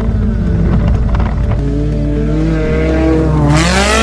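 A car engine driving off-road over background music with a steady bass line. Near the end the engine note rises and a loud rush of noise sets in.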